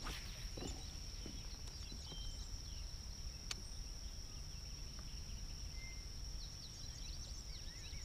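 Faint outdoor ambience at the water: a steady high-pitched insect drone with scattered short bird chirps over a low rumble, broken by two sharp clicks, one at the start and one about three and a half seconds in.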